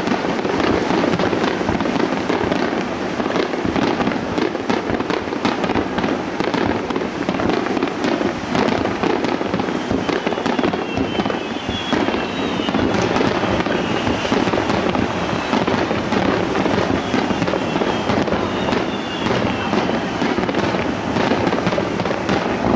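Star mine fireworks barrage: a dense, unbroken volley of shell bursts and crackling. From about halfway through, whistles that fall in pitch run over the top.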